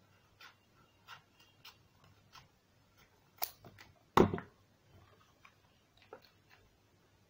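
Scattered light taps and rustles of a glitter craft sheet and cardboard pieces being handled on a wooden tabletop, with a sharp click about three and a half seconds in and a louder thump just after four seconds.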